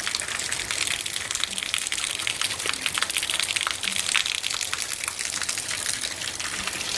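Heavy rain falling steadily: a dense hiss of many drops.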